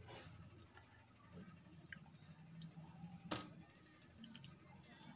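An insect's steady, high-pitched pulsing trill, with a single light knock a little past three seconds in as the plastic ruler is set down on the table.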